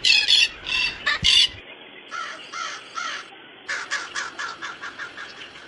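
A crow cawing: about five loud, harsh caws in the first second and a half, then quieter runs of quick repeated bird calls.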